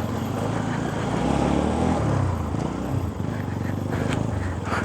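Bajaj Pulsar NS200's single-cylinder engine pulling the bike up a steep dirt climb, its revs rising and falling around the middle, over wind noise; the engine is running hot.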